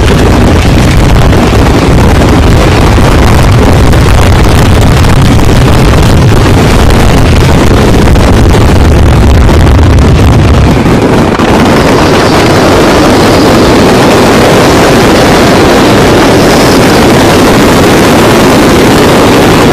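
A dense barrage of fireworks going off all at once, the explosions merging into one continuous roar so loud that it overloads the microphone. The deep rumble eases about eleven seconds in, leaving a steady crackling roar.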